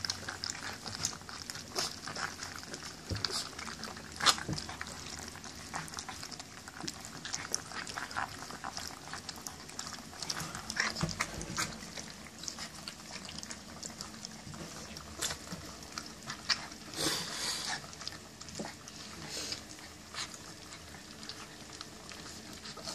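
German Shepherd puppies eating dry kibble from a stainless steel feeding pan: irregular crunching and sharp clicks of kibble against the metal, with a short rustle about three quarters of the way through.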